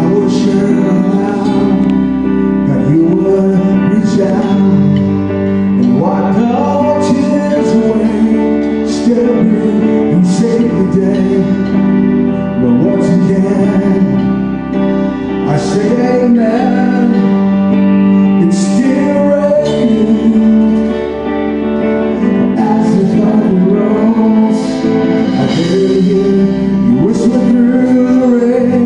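Live gospel worship song played on guitars with a bass line underneath, sung over with held, sliding vocal lines.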